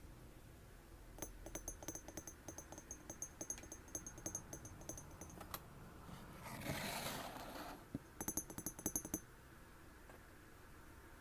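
Fast tapping on glass in two runs, each tap ringing with a thin high note. Between the runs there is a short swishing noise lasting about a second and a half.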